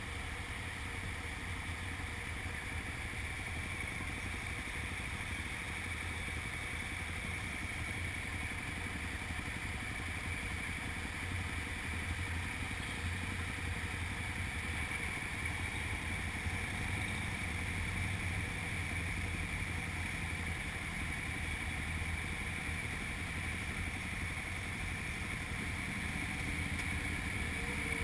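Motorcycle engines running at low speed as a group of bikes pulls out and moves off slowly, a steady engine drone that grows a little louder over the second half.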